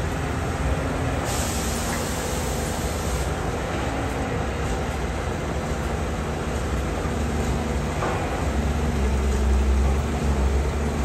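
Caterpillar 320D hydraulic excavator's diesel engine running steadily while the machine swings and digs, getting louder about nine seconds in. A brief hiss sounds about a second in.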